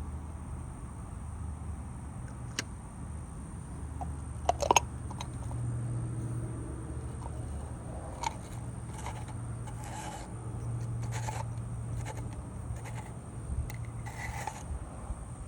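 Scattered clicks and short scrapes of small hard parts being handled and fitted, the loudest a quick cluster of clicks about four and a half seconds in, over a low steady hum.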